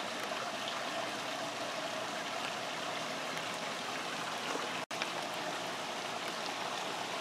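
Steady hiss of running water, with no distinct events; it cuts out for an instant about five seconds in.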